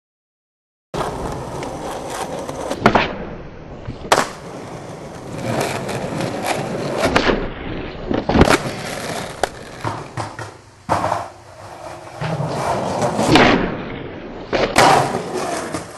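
Skateboard wheels rolling on pavement, starting about a second in, broken by several sharp cracks of the tail popping and the board landing on varial heelflips.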